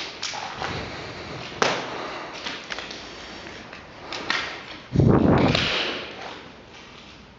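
Footsteps and scattered clicks on a rubble-strewn floor in an empty building, with a sharp knock about a second and a half in and a loud, heavy thump about five seconds in.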